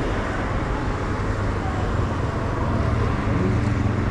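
Steady road traffic noise with a low, even engine hum, without any distinct knocks or passes.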